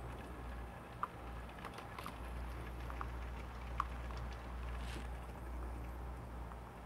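Espresso trickling from a La Pavoni lever machine's portafilter into a ceramic cup during the shot, with a few faint drip plinks over a steady low hum.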